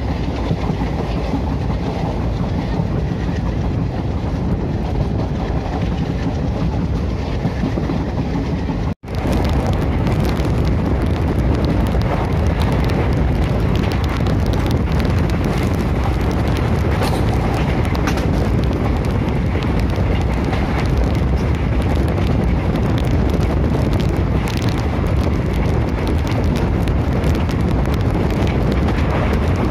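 Diesel-hauled passenger train running along the track, a steady rumble and rush of wheel and rail noise. It cuts out abruptly about nine seconds in and comes back louder.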